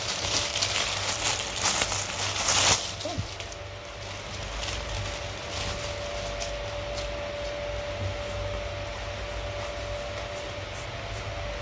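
Plastic packaging rustling and crinkling for about three seconds as a bucket hat is unwrapped, then a steady low hum with a faint steady whine.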